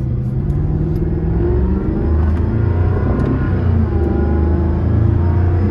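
Jaguar F-Type R's supercharged 5.0-litre V8 running as the car is driven, a loud low drone that drops in pitch about two seconds in and then holds steady. The active exhaust is in its quiet, valves-closed mode.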